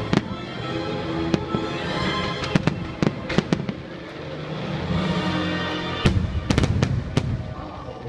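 Aerial fireworks bursting in a series of sharp bangs, with a quick cluster of cracks about six seconds in, over the show's music.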